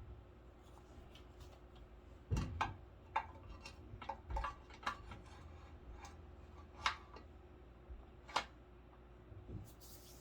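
Irregular light clicks and knocks of small parts and hand tools being handled while a motorcycle front fork is put together, a cluster of them a couple of seconds in and a few single ones later, over a faint steady hum.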